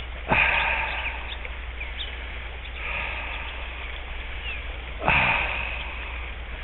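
River water running through a shallow riffle, with two louder swishing rushes of water, each fading over about a second, about five seconds apart.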